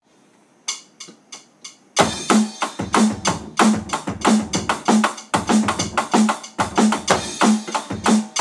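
Electronic drum kit: four quick clicks count in, then a steady drum beat starts about two seconds in, with kick and snare hits about every 0.6 seconds under faster cymbal strokes.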